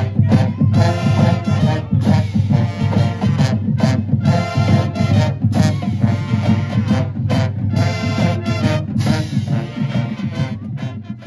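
Brass pep band playing an upbeat tune, with sousaphones, saxophones and trumpets over a steady beat.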